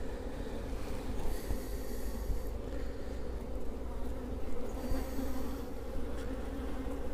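Honeybees buzzing around an open hive: a steady, even hum of many bees.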